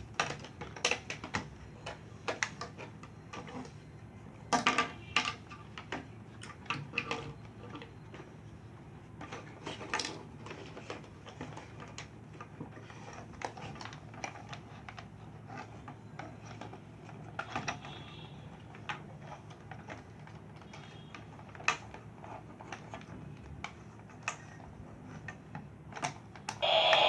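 Irregular light clicks and knocks of small plastic parts being handled, over a faint low steady hum.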